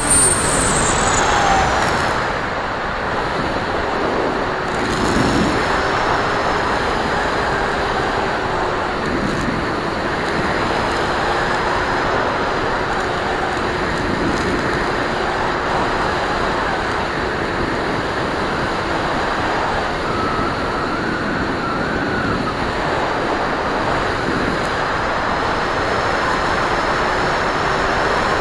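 Onboard audio of an FPV model plane in flight: the motor's whine drops in pitch over the first couple of seconds, then a steady rush of airflow over the plane with a faint low motor hum beneath it.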